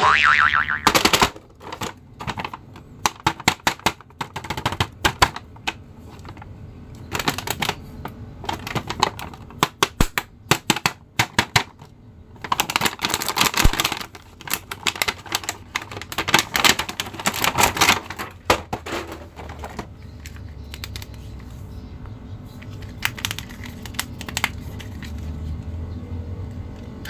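Stiff plastic blister packaging and card being handled and pulled open: a scatter of sharp clicks and snaps, with longer stretches of dense plastic crackling around the middle.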